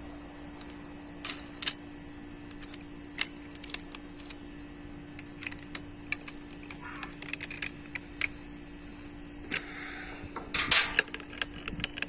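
Scattered clicks, taps and light metal clatter of an angle grinder being handled while a cutting disc is fitted and its flange nut locked down, the busiest and loudest clicks near the end. A steady low hum runs underneath.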